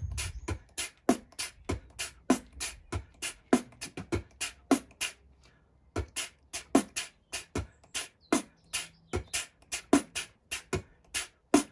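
Beatboxed beat: low kick-drum thumps with short, trashy cymbal-stack hits made by pushing air through shut teeth on a silent 'D', in a quick steady rhythm, with a brief pause about five seconds in. This is the smaller, quicker cymbal-stack version, made with less of a smile.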